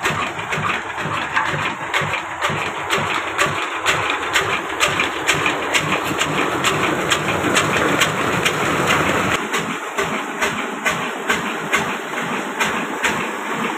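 Old 22 hp stationary diesel engine running steadily under load, driving a tube-well pump, with an even, regular beat. Water gushes from the pump outlet pipe and splashes into the tank, and the engine's low end fades about two-thirds of the way through.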